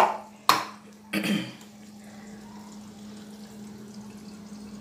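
Two short knocks, about half a second and a second in, then the faint steady hiss of a lit gas stove burner under an empty pan, with a low hum throughout.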